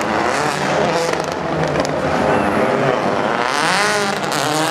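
World Rally Car turbocharged four-cylinder engines at racing revs. Near the end the engine note climbs, drops and climbs again through gear changes, with scattered pops and crackles from the anti-lag system.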